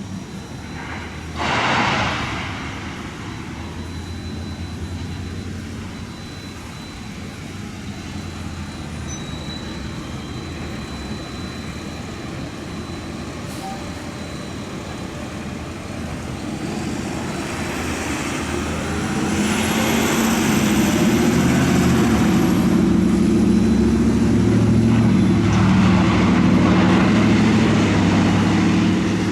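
Large demolition excavator's diesel engine running, then working harder and louder from a little past halfway, with a faint high whine rising and falling. A brief loud rush of noise about two seconds in.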